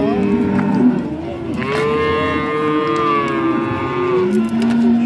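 Cows mooing: several drawn-out, overlapping moos, the loudest a long call of about two seconds in the middle, followed near the end by a lower moo.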